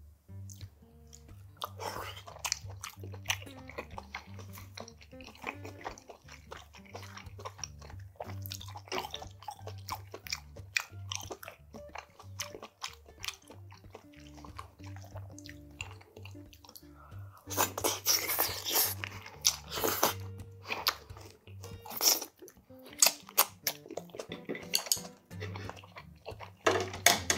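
Close-up eating sounds of spicy steamed monkfish (agujjim): wet chewing and crunching, loudest in a run of bites a little past the middle, over quiet background music with a low bass line.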